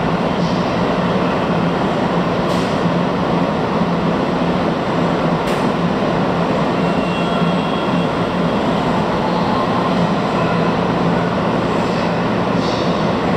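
Tokyu 8500 series electric train standing at an underground platform with its onboard equipment running: a steady hum over a low drone, with a couple of faint clicks.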